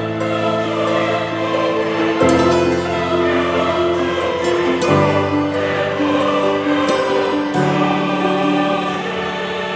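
Cinematic background music: sustained chords that change about every two and a half seconds, with bright shimmering strikes high above them.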